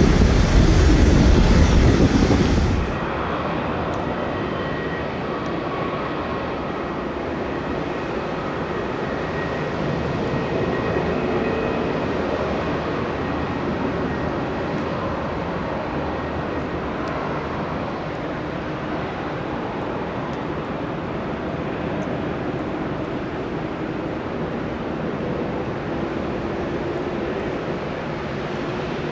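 Jet airliner engines running, a steady rumble with faint whining tones over it. For the first three seconds or so, wind buffeting the microphone drowns it out, then stops abruptly.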